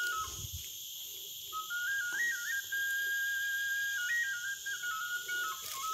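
A simple tune in one clear, high, whistle-like tone, moving in steps between held notes, with a break of about a second near the start. Under it runs a steady high buzz of forest insects.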